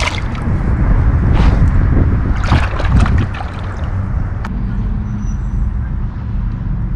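Water splashing and sloshing as a small chain pickerel is let back into the pond and swims off, over about the first three seconds, with a steady low rumble underneath.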